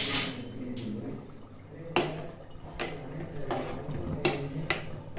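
Metal pots, lids and utensils clinking and knocking in a kitchen: about seven sharp, briefly ringing clinks spaced irregularly, the loudest at the very start.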